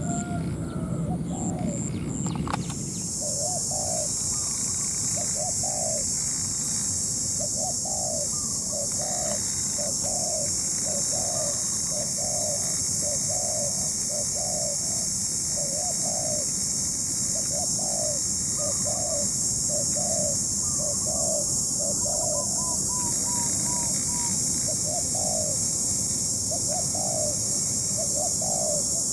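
Spotted dove cooing over and over, short soft notes in pairs and phrases, over a steady high hiss. A sudden change about two seconds in cuts off a low rumble and a pulsing high tone.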